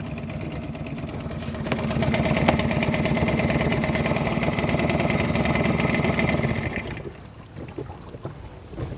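Hangkai 6 hp two-stroke outboard motor running, growing louder about two seconds in, holding steady, then dying away about seven seconds in.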